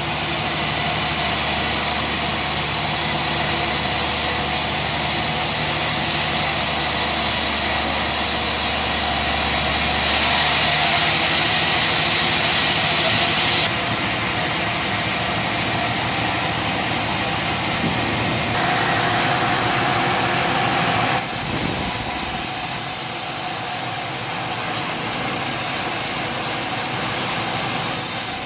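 An engine running steadily, with sudden shifts in its tone a few times along the way.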